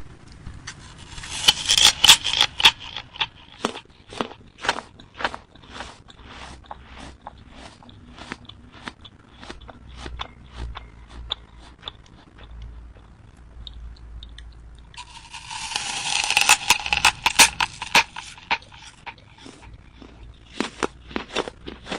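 Crisp raw apple being eaten: a loud crunching bite about a second in, then chewing with a run of small crunches, and a second big bite about fifteen seconds in, followed by more chewing.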